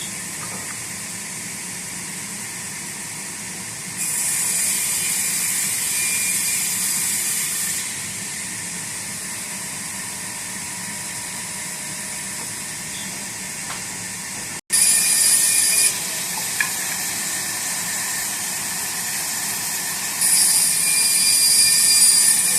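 Sawmill machinery running steadily, with spells of a louder, high-pitched whine as the saw cuts through wood: one spell about four seconds in lasting about four seconds, a short one around the middle, and another near the end.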